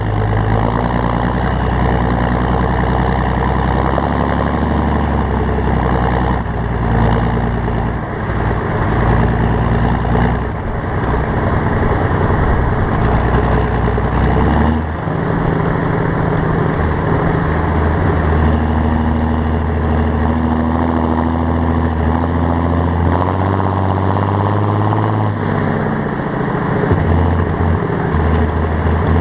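John Deere 7530 tractor's engine running steadily, with a high whine that slides down and back up; the engine note shifts about halfway through.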